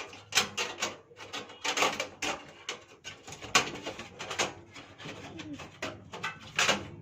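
A stamped-metal PC I/O shield being worked into the back of a computer case: a run of irregular clicks, taps and scrapes of thin metal against the case.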